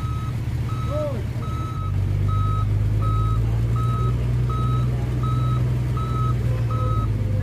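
Tow truck's reversing alarm beeping steadily, about three beeps every two seconds, over a heavy truck engine running under load while it hauls the overturned dump truck on its cable; the engine gets louder a couple of seconds in.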